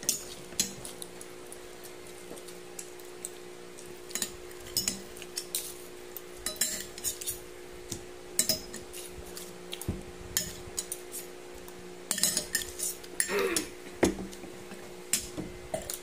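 Metal fork and spoon clinking and scraping against a plate while eating, in scattered, irregular clinks.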